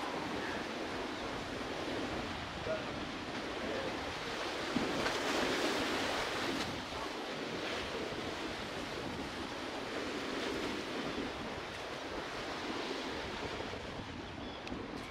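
Sea waves washing against the concrete tetrapod breakwater beside a pier, a steady wash that swells briefly about five seconds in.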